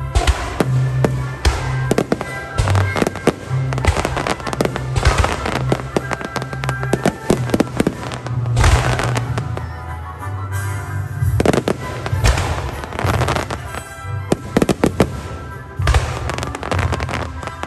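Fireworks barrage: many aerial shells bursting in quick, irregular succession, with booms and crackling. Music with a bass line plays underneath.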